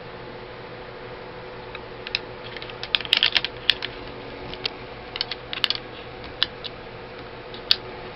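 Sharp metal clicks and taps of AK-47 parts being handled as the recoil spring is fitted back in, coming in uneven clusters about three and five seconds in, with a couple of single clicks later, over a steady faint hum.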